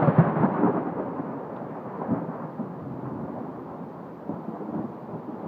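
Rumble of a close thunderclap dying away over the first second or so, over steady heavy rain.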